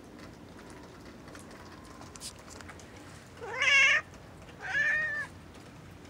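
Long-haired domestic cat meowing twice in quick succession, the first meow louder than the second.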